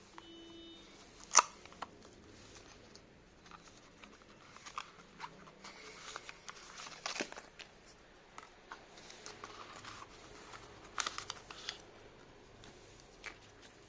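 Hands handling earbud packaging: scattered clicks, taps and soft crinkling rustles, with one sharp click about a second in and a brief short tone at the very start.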